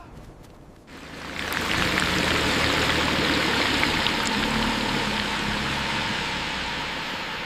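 Heavy rain pouring down. It comes in suddenly about a second in as a dense, steady rush.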